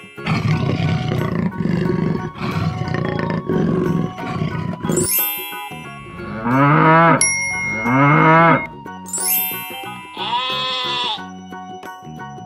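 Cartoon animal sound effects over background music: a big cat's growling roar for about the first five seconds, then two loud cow moos with a bell ding between them, then a sheep's bleat about ten seconds in.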